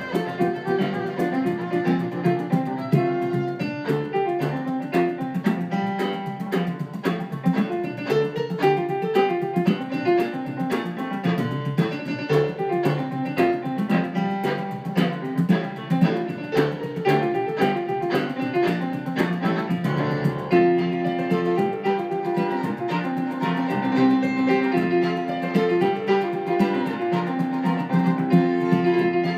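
Fiddle and stage piano playing a lively traditional tune in 6/4 time, with a steady chordal piano accompaniment under the fiddle melody.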